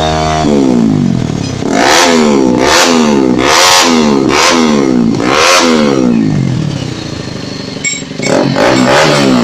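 Bajaj Pulsar 200NS single-cylinder engine revved through a Yoshimura R11-style aftermarket exhaust in quick repeated throttle blips, each one rising and falling in pitch. A held rev drops away just after the start, and there is a short lull near the end before the blips resume.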